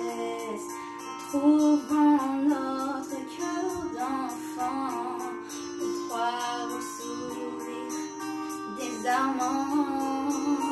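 A girl singing a French song in a melodic line over instrumental backing music, holding and bending long notes.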